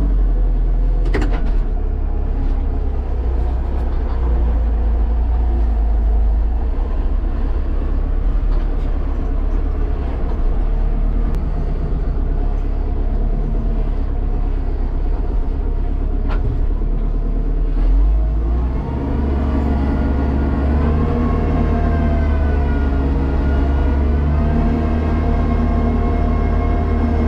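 Kubota tractor's diesel engine running steadily at high rpm, driving the PTO-powered front snow blower as it clears snow, heard from inside the closed cab. The engine note dips briefly about two-thirds of the way through, then wavers under load.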